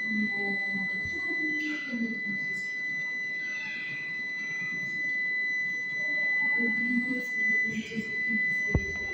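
A steady high-pitched electronic whine with faint murmuring voices behind it, and a single tap near the end as a finger presses the ticket machine's touchscreen.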